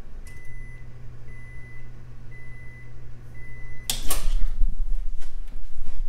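GE Profile Advantium microwave oven finishing its cook cycle, now working on a new control board: four short beeps about a second apart over a low hum. About four seconds in the door is opened with a loud clunk, followed by a few light knocks as a hand reaches inside.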